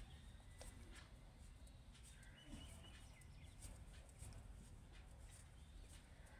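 Near silence: faint, scattered clicks of metal knitting needles over a low steady hum.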